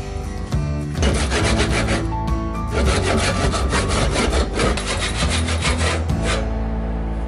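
Hand backsaw cutting an oak handle blank in a run of quick strokes, with a short pause about two seconds in, and stopping a little after six seconds in. Music plays underneath.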